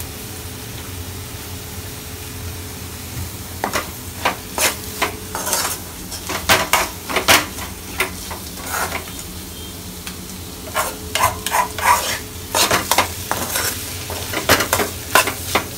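Metal spatula scraping and stirring scrambled egg in a metal kadai, over a steady low sizzle of frying. The scrapes start a few seconds in, pause briefly, then go on in quick strokes.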